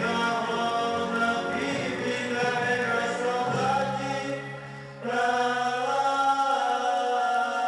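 Music of long held notes playing for the dance, dipping briefly just before five seconds in and coming back in full.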